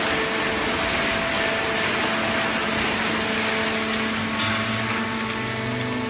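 Horizontal waste paper baler and its feed conveyor running: a steady machine hum with several steady tones. A deeper hum comes in about four and a half seconds in.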